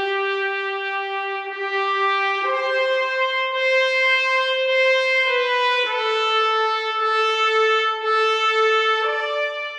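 Slow solo trumpet melody played as long held notes, stepping to a new pitch every second or two.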